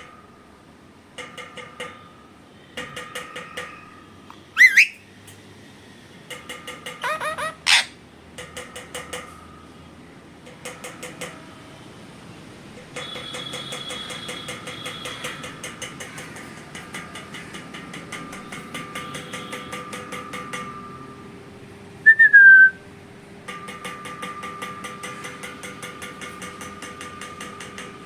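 Pet parrot vocalising: runs of rapid trilling chatter broken by a few loud, sharp rising whistles and one short falling whistle.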